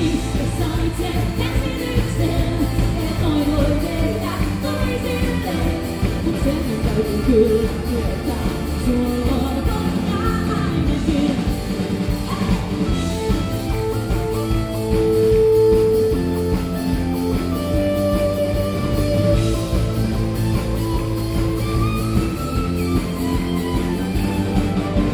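A woman singing lead vocals into a microphone over a live amplified pop-rock band with guitar, keyboards and drums.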